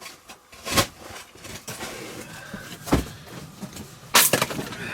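An axe striking three times with sharp knocks, about a second in, about three seconds in, and loudest near the end.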